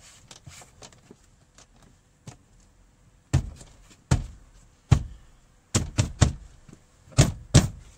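About eight sharp thumps, some in quick pairs and loudest near the end: a car's plastic door trim panel being struck by hand to press its clips home into the door.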